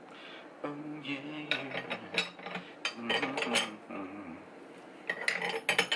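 Steel spanners clinking against each other and against the engine-mount bolt as they are fitted onto the bolt head, a run of sharp metallic clicks with a second cluster near the end. A low voice hums or mutters under the first few seconds.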